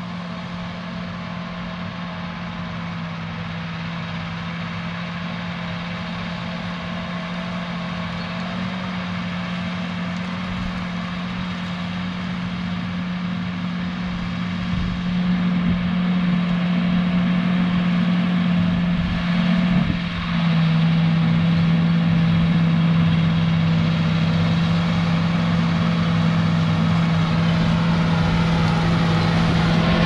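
John Deere 8245R tractor's diesel engine running steadily under load while pulling a Case IH chisel plow, growing louder as the tractor approaches, with a short dip in level about two-thirds of the way through.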